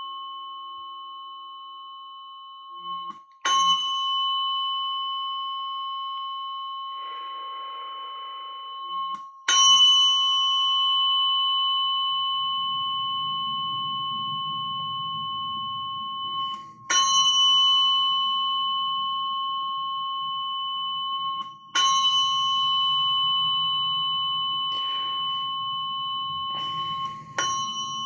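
A metal chime struck five times, a few seconds apart, each strike ringing on with a steady high tone that slowly fades.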